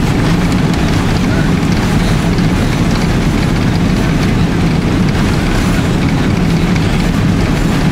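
Boeing 777-300ER on its takeoff roll heard from inside the economy cabin: its GE90 engines at takeoff thrust and the wheels rumbling along the runway, a loud, steady noise. The aircraft is fully loaded and slow to accelerate.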